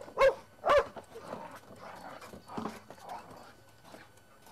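Dogs barking: three loud barks within the first second, then only fainter sounds.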